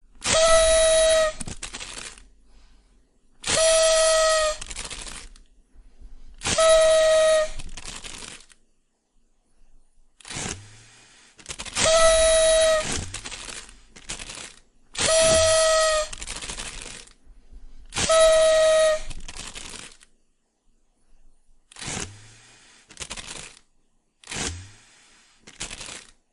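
Party whistle noisemaker blown in six loud blasts of about a second and a half each, a few seconds apart, each holding one steady, reedy pitch. Shorter, breathier toots come between them and in a quick run near the end.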